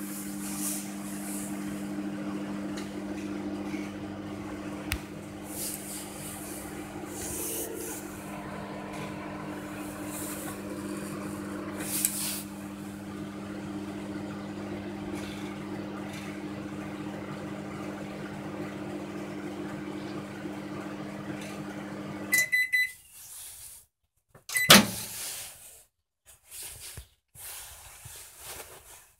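Zelmer 29Z022 microwave oven running with a steady hum as it counts down. Near the end the hum stops with a few short beeps at the end of the cycle, then comes a loud clack as the door is opened. The oven is faulty: it runs but does not heat food.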